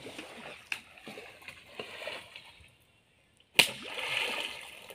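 Water splashing, then after a short gap a sharp slap on the water about three and a half seconds in, followed by about a second of spray: a person jumping from a rock into a river.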